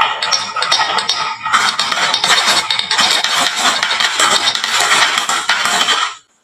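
Many marbles rolling and clattering down a wooden marble run, a dense stream of clicks and clacks that cuts off suddenly near the end.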